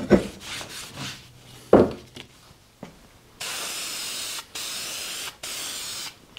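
Metal plates handled and knocked on a wooden workbench, with one loud clunk near two seconds in. Then an aerosol spray-paint can hisses in three bursts of about a second each, coating steel parts with paint.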